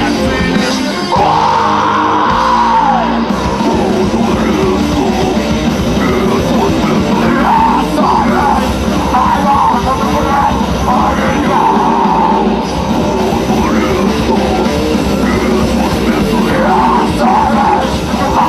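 Alternative rock band playing live, loud and continuous, with a voice singing over the band.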